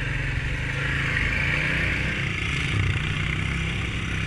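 Honda ATV's single-cylinder four-stroke engine running steadily, with a steady hiss over it.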